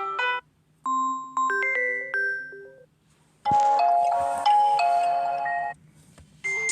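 Samsung Galaxy Tab A7 Lite ringtones previewed one after another through the tablet's speaker. A ringtone cuts off just after the start, then a bell-like chime of a few rising notes plays. After a pause comes a busier electronic melody that stops abruptly, and another starts near the end.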